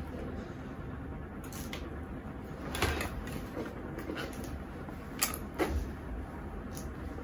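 A folding black fabric softbox and its frame being handled and opened out: rustling with a few sharp clicks and knocks, the loudest about three seconds in and twice around five seconds in.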